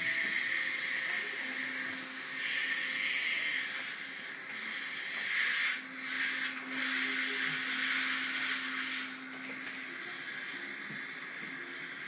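Dental equipment hissing at the patient's mouth: the air of a suction tip or air syringe, swelling louder in stretches about two and a half, five and a half and seven seconds in, then easing off.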